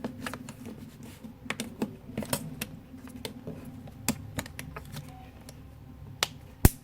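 Irregular light clicks and taps of small plastic and metal phone parts being fitted and pressed back together during smartphone reassembly, with one louder click near the end. A steady low hum runs underneath.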